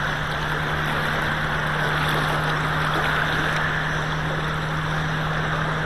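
Shallow river current rushing steadily over a riffle. A steady low hum runs underneath.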